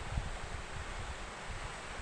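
Wind buffeting the microphone in uneven low gusts, over a steady rushing noise.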